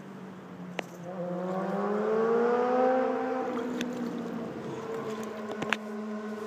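A motor engine's steady hum, with a second engine note that rises in pitch and grows louder from about a second in, then eases off; a few sharp clicks over it.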